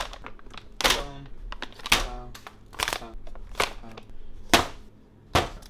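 Plastic bags and pouches of food set down one after another on a stove top: six sharp thumps, about one a second.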